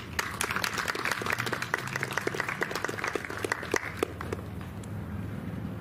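Audience applauding: a dense patter of hand claps that thins out and dies away about four seconds in.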